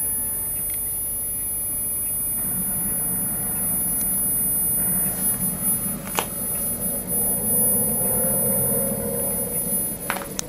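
Valve television set running on the 405-line system. It gives the steady high-pitched whistle of its line timebase near 10 kHz, over a low steady rumble from its loudspeaker. There are a couple of sharp clicks, one about six seconds in and another near the end.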